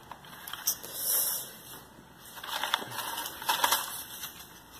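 Crumpled packing material crinkling and crackling as a hand pulls it out from around a potted orchid, with a dense run of sharp crackles from about two seconds in.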